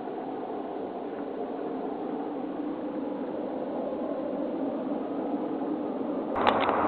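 A steady, distant droning rumble with several faint held tones, of the kind these recordings capture as an unexplained 'strange roaring noise'. Near the end it gives way suddenly to louder noise with a few sharp clicks.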